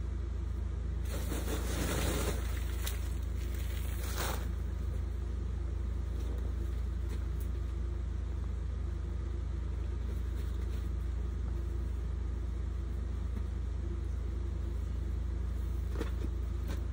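A steady low hum throughout, with a burst of crinkly plastic bubble-wrap rustling from about one to four seconds in and a few light clicks later on.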